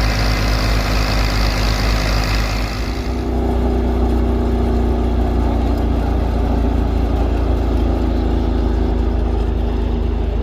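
Tractor engine running steadily to drive a wheat thresher, with the machine's hum and rattle. About three seconds in, the hissing, rattling top of the sound fades and a deeper engine hum comes forward.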